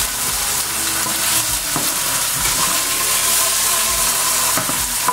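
Beef sizzling steadily in a frying pan over fairly high heat, stirred with a wooden spoon, with a few light knocks of the spoon against the pan.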